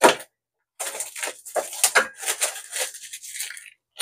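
A cardboard trading-card blaster box being handled and opened. There is one sharp click at the start, then about three seconds of crinkling, scraping packaging noise.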